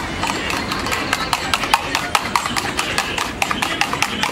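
A spoon beating eggs in a stainless steel tumbler, clinking against the metal in a quick, even rhythm of about five sharp clinks a second.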